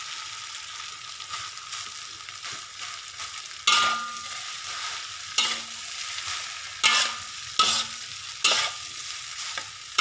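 Fried rice being stir-fried in a large metal wok: a metal spatula scrapes and tosses the rice over a steady sizzle. In the second half the spatula strikes the wok five times with sharp, briefly ringing clangs.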